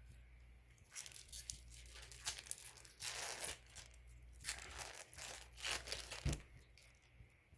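A foil trading-card pack torn open by hand: a run of short tearing and crinkling rips starting about a second in and stopping near the end, with one soft bump shortly before they stop.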